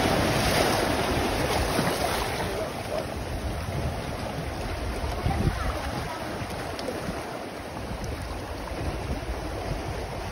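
Sea surf washing and splashing among shore boulders, with a wave surging through in the first couple of seconds and then a steadier wash. Wind buffets the microphone.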